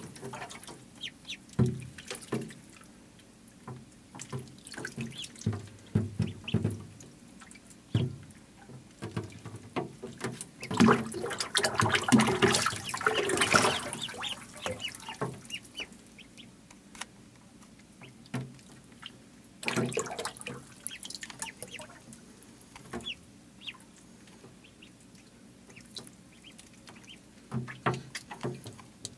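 A group of ducklings splashing and paddling in shallow water in a plastic tub, peeping among the small splashes. There is a louder stretch of splashing about twelve seconds in.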